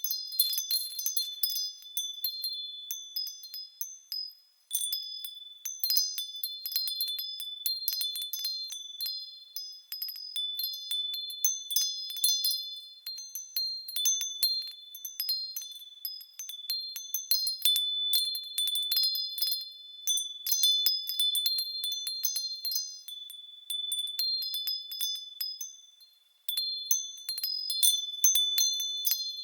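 Japanese furin wind bells ringing in the breeze: quick, irregular clapper strikes with high, clear ringing tones that overlap and linger. The ringing dies away almost to nothing about four and a half seconds in, and again about three seconds before the end, then the strikes start again.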